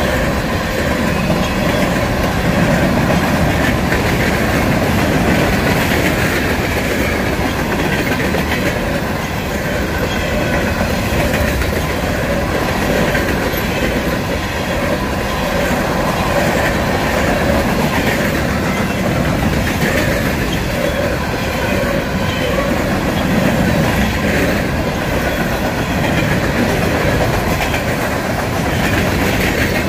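Freight train of covered hopper cars rolling past at close range: a steady, loud rumble of steel wheels on the rails that does not let up.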